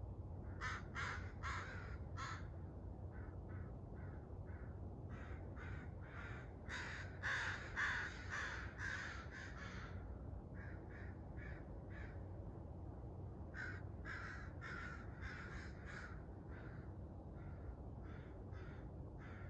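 Crows cawing in repeated runs of short, harsh calls, loudest and overlapping about seven to eight seconds in, over a steady low background rumble.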